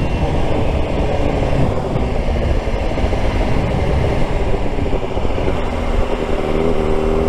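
Suzuki GSX-R600's inline-four engine running while riding, under heavy wind rumble on the rider's helmet microphone. The engine note comes through more clearly near the end.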